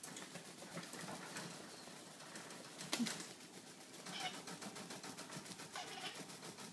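Baby African grey parrot flapping its wings rapidly in place, a quick, even fluttering of feathers, with one sharp knock about three seconds in.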